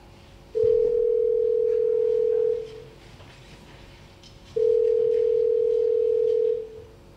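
Telephone ringback tone: a single steady tone sounds for about two seconds, twice, with a two-second pause between. It is the sound of a call ringing out and waiting to be answered.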